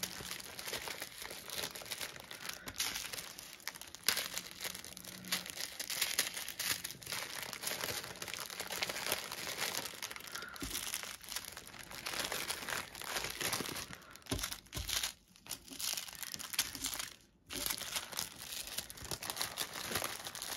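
Small plastic bags of diamond-painting drills crinkling and rustling as they are handled and gathered up by hand, a busy run of crackles with two brief lulls near the end.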